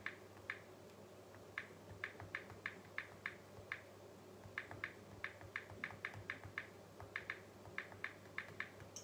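Fingers tapping and typing on a smartphone touchscreen: faint, quick light clicks, about three a second, in three short runs with brief pauses between them. A steady low hum lies underneath.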